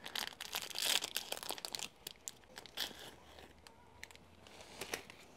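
Foil wrapper of a ration biscuit crinkling and tearing as it is opened by hand. The crackles are thickest in the first two seconds, then come scattered while the biscuit is pulled out.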